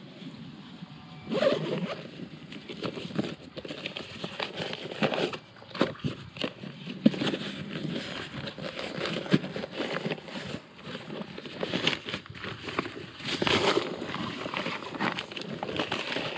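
The zipper of a nylon packraft carry bag being unzipped, with irregular rustling and scraping of nylon fabric as the folded boat and stuff sacks inside are handled and pulled out.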